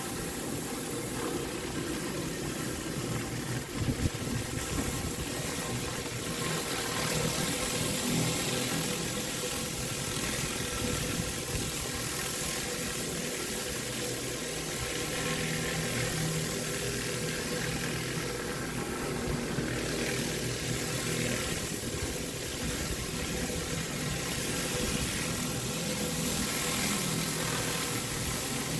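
Pressure washer's engine running steadily under the hiss of high-pressure water from a flat surface cleaner working over concrete. One sharp knock about four seconds in.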